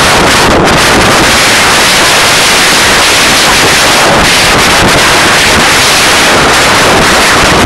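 Strong storm wind blasting the phone's microphone in a loud, steady rush of noise, with heavy surf breaking on a rocky shore beneath it.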